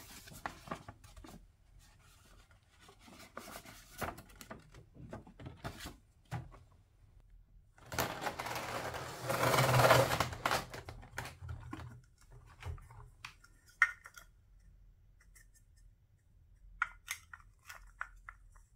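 Hands handling a cardboard toy box and its clear plastic tray: paper sliding and rustling, with a longer scraping rustle about halfway through. Near the end come short sharp clicks and taps of hard plastic toy food pieces being handled.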